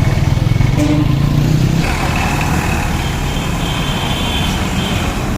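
Motorcycle running on the road while being ridden: a steady low engine and road rumble.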